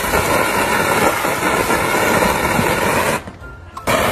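A jet of water from a hose spraying and splashing against a glass door, as a steady rushing hiss that breaks off briefly about three seconds in and then starts again.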